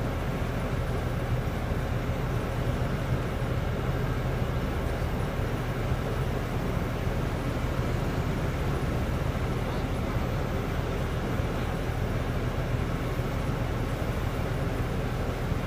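Truck-mounted well-drilling rig's engine running steadily with a constant low hum.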